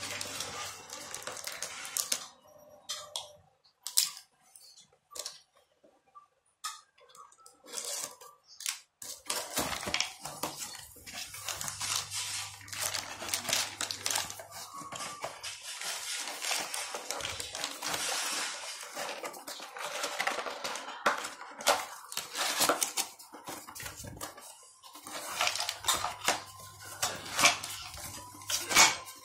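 A cardboard toy box being opened and handled: cardboard scraping and rustling, with many light knocks and clatters of the wooden pegs and pieces inside.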